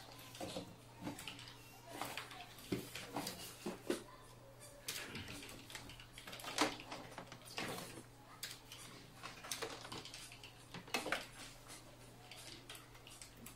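Scattered clicks, knocks and rustles of equipment being handled and set down on a desk: a cardboard box moved away, a monitor put in place and cables handled. A low steady hum runs underneath.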